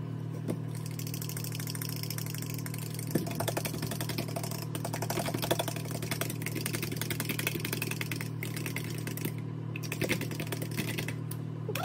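Eggs being whisked in a bowl, a rapid run of clicks over a steady low hum.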